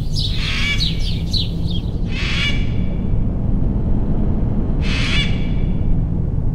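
Quick run of bird chirps, then two loud parrot squawks, about two seconds in and again near five seconds, over a steady low hum.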